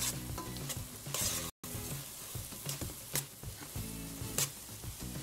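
A spoon stirring coarse cassava flour into a frying sausage-and-vegetable mixture in a pot: repeated scraping strokes over a light sizzle. Soft background music runs underneath, with a brief dropout about a second and a half in.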